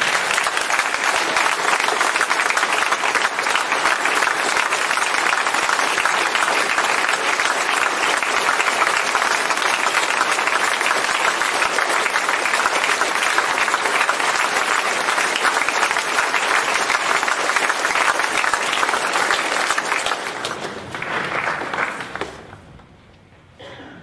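A large audience of students applauding, a dense, steady clapping that holds for about twenty seconds and then dies away near the end.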